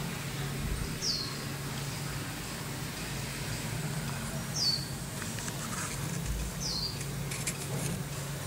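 A small bird chirps three times, each a short, high call sliding downward, over a steady low hum. A few clicks near the end.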